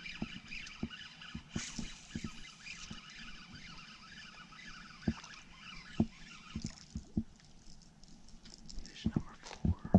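Scattered knocks and clicks of handling in a small fishing boat over a steady high-pitched hiss that fades out about seven seconds in. Near the end, a hooked bass splashes as it jumps at the surface.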